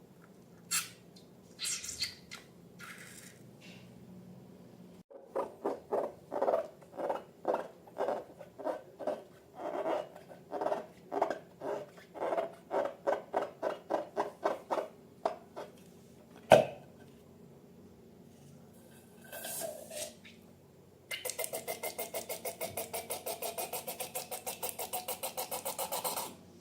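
Slime being worked by hand: a long run of soft, wet squishing pulses, about two a second, followed by one sharp loud click and, near the end, a fast, even crackling.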